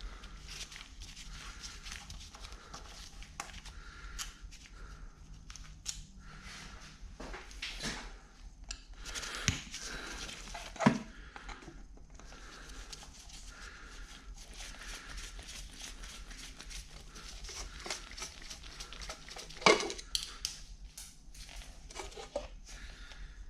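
Hand tools and metal parts being handled while a Bridgeport milling machine head is disassembled: scattered small clicks and clinks over a steady low hum, with two sharper metallic knocks, one about halfway through and one later on.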